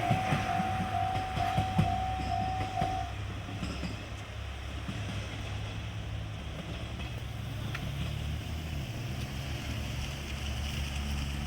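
A level crossing warning bell dings in quick regular strokes for about the first three seconds, then stops. Under it a diesel railcar's engine drones, with a few sharp clicks early on, and the engine grows louder in the second half.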